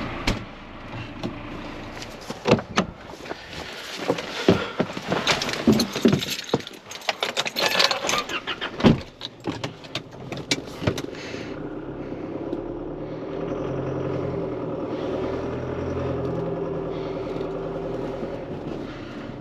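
A run of metallic clanks, knocks and rattles for the first eleven seconds or so. After that the John Deere 6430 tractor's engine runs steadily and is heard plainly.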